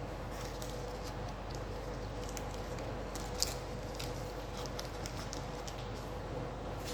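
Faint scattered clicks and light taps of objects being handled, with one sharper click about halfway through, over a steady background hum.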